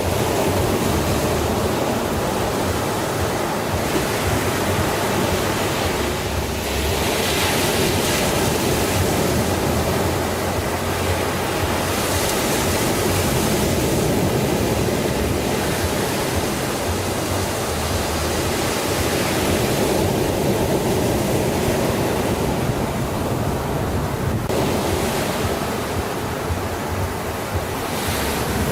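Sea waves washing ashore: a continuous rushing of surf that surges louder every few seconds as waves break.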